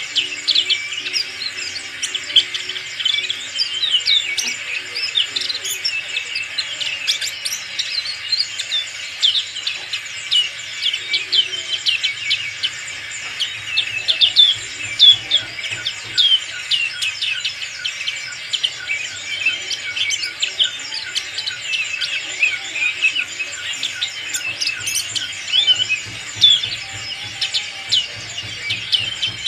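Black-capped white-eye singing: a fast, continuous run of high twittering chirps and quick up-and-down whistles, barely pausing.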